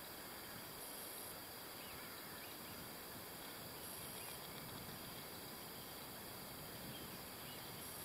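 Quiet open-countryside ambience: a low steady hiss with a faint, very high chirp about every three and a half seconds and faint distant calls in between.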